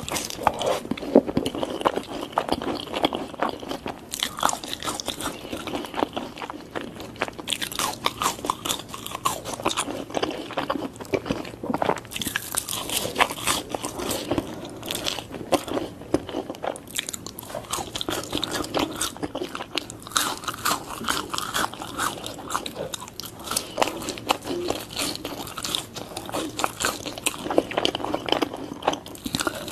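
Close-miked eating: crispy fried chicken nuggets and french fries dipped in cheese sauce, bitten and chewed in a steady run of crunches.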